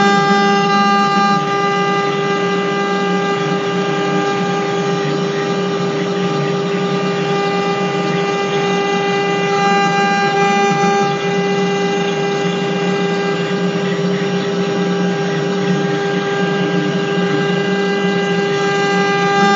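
Small CNC engraving machine's spindle running at speed while its fine bit carves a relief into a wooden board: a steady whine with a ladder of overtones over a lower rumble, unchanging throughout.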